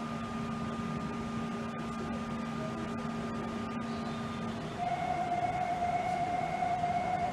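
Subway train running with a steady electrical hum of a few level tones over background rumble. About five seconds in the tones switch to a single higher, stronger one.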